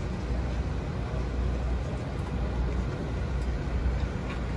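Steady low rumble of pit-area background noise with a faint hiss above it. There are no distinct knocks or engine notes.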